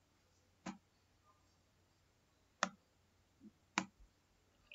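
A handful of single computer mouse clicks, spaced irregularly, over quiet room tone.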